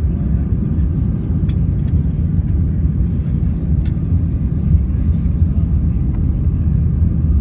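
Airbus A320-200 landing, heard from inside the cabin beside the wing: a steady, loud low rumble of the engines, airflow and airframe.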